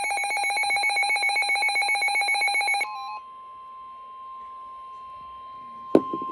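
A weather alert radio's built-in alarm rings as a fast, pulsing trill and cuts off about three seconds in. The steady single-pitch NOAA Weather Radio warning tone then comes on, quieter. A sharp knock sounds near the end.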